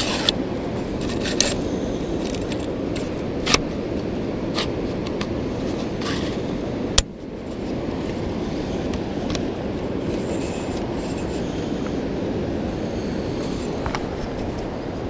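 Steady rushing of water pouring over a dam's coffer, with a few sharp knocks, the loudest about halfway through.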